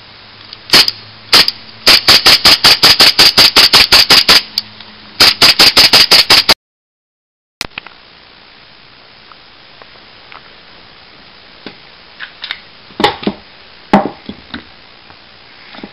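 HFC M9 gas blowback airsoft pistol firing: two single sharp cracks, then fast strings of shots at about five a second, with a short pause between the strings. After a sudden cut, a few quieter clicks and knocks sound over steady background noise.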